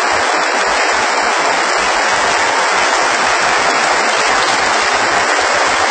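A large crowd applauding steadily, a dense, even sound of many hands clapping.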